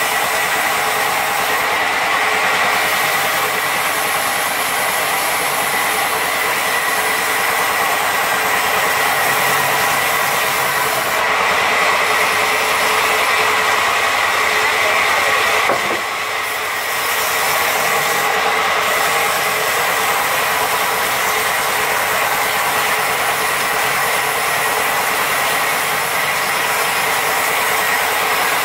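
Large band saw running and ripping lengthwise through a log: a loud, steady rasping noise with a constant high tone. It dips briefly about halfway through.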